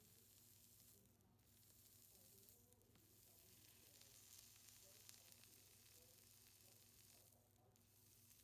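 Faint fizzing hiss of electrolytic etching on a chrome Zippo lighter case, as current from a DC power supply eats through the unmasked chrome; the hiss stops briefly about three times.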